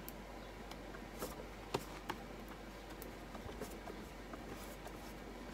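Faint brushing of a paintbrush working thick crackle medium over a painted wooden board, with a few light clicks in the first half.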